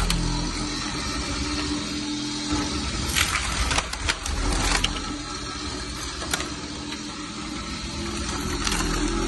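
ROLL-STRIPPER RO-2 electric floor stripper running, its blade prying glued three-layer parquet off the screed: a steady motor hum with wood cracking and pieces clattering several times.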